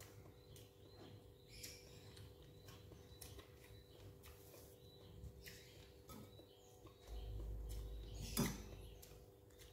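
Quiet eating sounds: a metal spoon scraping and tapping in a glass soup bowl, with one sharp clink a little over eight seconds in, over a faint steady hum.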